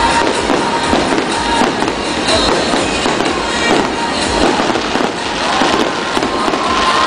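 Fireworks display: a dense, continuous barrage of overlapping bangs and crackles from bursting shells.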